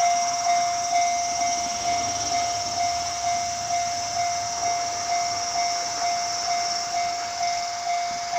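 Japanese railway level crossing warning bell ringing, one steady pitch repeating at about two strikes a second, warning that a train is approaching.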